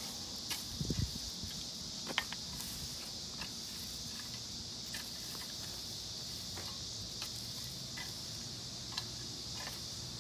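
Steady high buzzing of insects, with scattered light clicks and scrapes from a garden rake working soil and dry grass, and footsteps.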